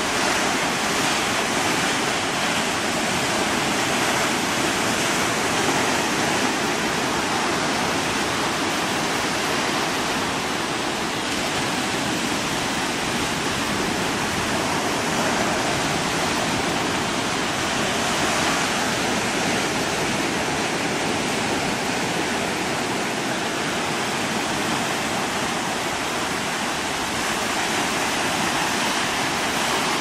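Ocean surf washing up a beach close by: a steady rushing hiss of breaking waves and foam with no distinct single crashes.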